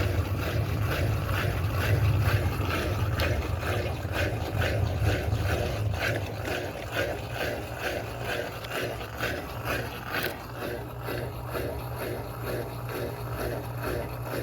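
Electrolux Turbo Economia LTD06 washing machine running: a low motor hum that slowly fades, with a regular swishing pulse about twice a second.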